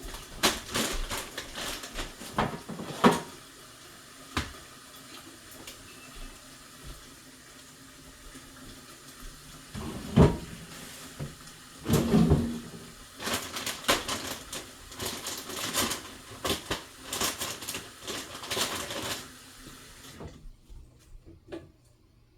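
Kitchen handling sounds: scattered clicks, knocks and clatter of things being moved and set down, busiest in the second half, over a faint steady hiss that cuts off about twenty seconds in.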